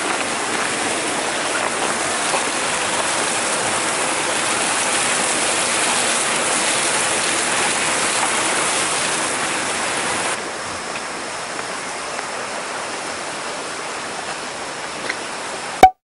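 Stream water pouring down a small drop into a pool, a steady rush and splash; it becomes somewhat quieter a little past ten seconds in and cuts off with a sharp click just before the end.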